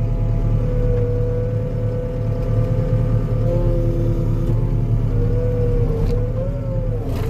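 Diesel engine of a compact earthmoving machine running steadily under the operator, with a high whine over it that wavers and dips in pitch in the last couple of seconds as the machine is worked through a turn.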